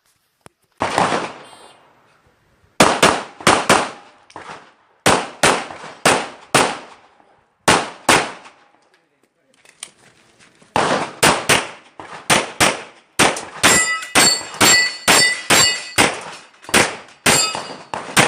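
A 9mm Glock 34 pistol firing a long string of rapid shots, about thirty in all, with a pause of about two seconds partway through. Toward the end several hits set steel targets ringing.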